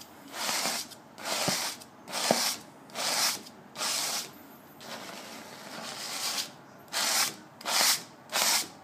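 Rasping strokes of a tool rubbing and scraping across dried oil paint on a canvas, a little under one a second, with a softer stretch in the middle. The grit in the sound comes from dirt that has dried into the paint.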